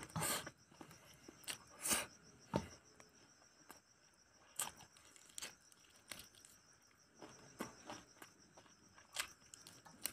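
A man eating rice and curry with his fingers: scattered short smacks and clicks of chewing and of fingers working the rice on a steel plate. Insects chirr steadily in the background.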